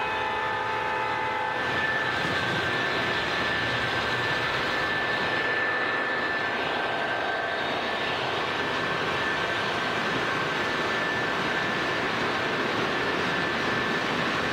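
O-scale model freight train rolling past close by on metal track, a steady rumble of wheels and motors. A horn-like chord sounds in the first second and a half, then stops.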